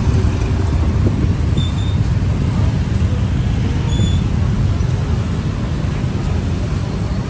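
Steady low rumble of city street traffic, with a few brief faint high squeaks, about two seconds in and again near four seconds.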